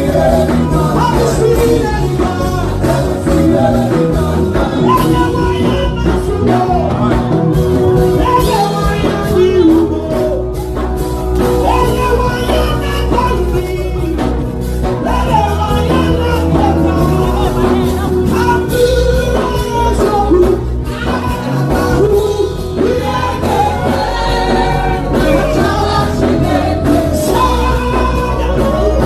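Music with a singing voice over a steady bass beat.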